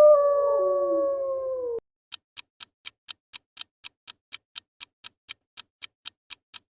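A wolf howling in one long, slightly falling note, with fainter overlapping howls beneath it, cut off abruptly about two seconds in. A clock then ticks steadily, about four ticks a second.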